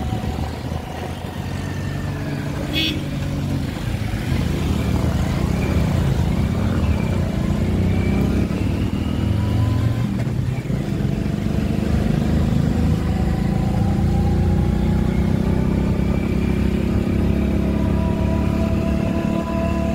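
Motor vehicle engine running steadily while driving, slowly getting louder, with one brief sharp sound about three seconds in.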